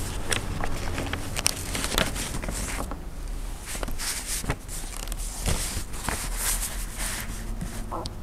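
Quiet room tone with a steady low hum, broken by scattered small clicks and soft rustles, like paper and hands moving at a microphone.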